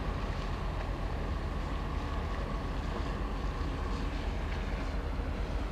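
Wind buffeting the microphone: a steady low rumble, with a faint steady hum underneath.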